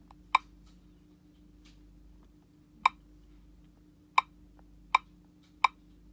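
Five short, sharp clicks as buttons on a handheld IPC-5200 CCTV tester are pressed. The first two are a few seconds apart and the last three come quickly, about a second apart or less.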